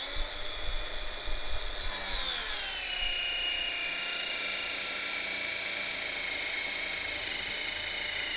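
Milwaukee M18 Fuel brushless cordless angle grinder with a flap disc grinding a metal bar under a weighted load, throwing sparks. Its motor whine drops in pitch about two seconds in as the load bogs it down, then runs steady at the lower speed, around 3,200 RPM against about 6,200 with no load.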